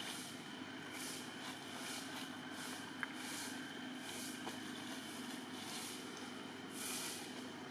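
Steady outdoor background hum and hiss, with faint high pulses coming and going and a few light clicks, one about three seconds in.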